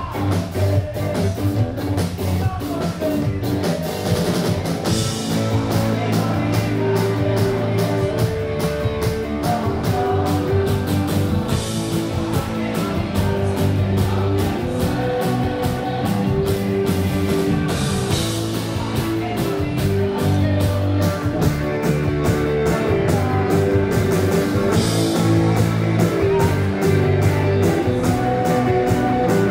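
Rock band playing live through a festival PA: electric guitars and bass over a drum kit keeping a steady beat.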